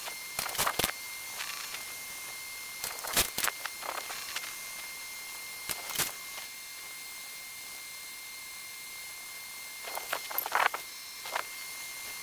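Hurco CNC vertical mill standing by with a steady electrical hum and thin high whine, broken by several short whirring, clicking bursts as the spindle head is jogged up and down to set tool heights.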